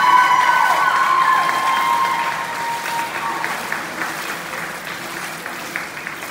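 Spectators applauding, with high-pitched cheering voices over the first few seconds; the clapping then dies down toward the end.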